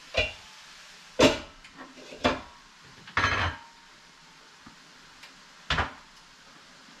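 Pots, pans and a pan lid clattering as cookware is handled and a lid is set on a skillet: about five separate knocks and clanks, the loudest about a second in, with a longer rattling clatter just after three seconds.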